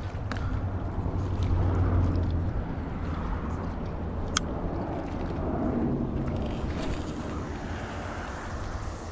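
Wind rumbling on the microphone outdoors, a steady low buffeting, with a single sharp click a little past four seconds in.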